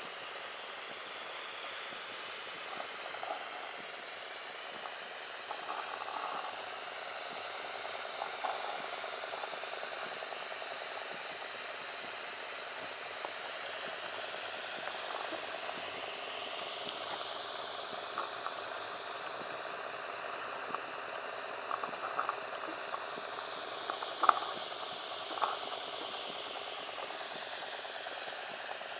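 Wilesco D14 model stationary steam engine running under steam, a steady hiss of escaping steam that slowly swells and fades. A few faint clicks come about three quarters of the way through.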